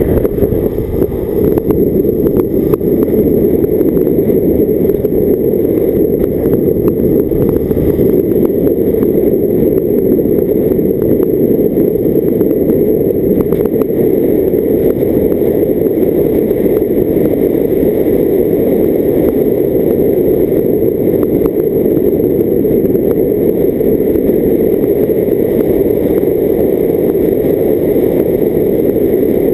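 Steady low rumble of a car on the move: road and wind noise on the microphone of a camera mounted on the vehicle, with no clear engine note standing out.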